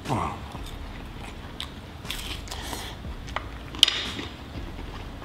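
Close-miked mukbang eating: a man biting and chewing a mouthful of food, with wet smacking and scattered crunchy clicks and a short falling hum right at the start. A sharp click a little under four seconds in.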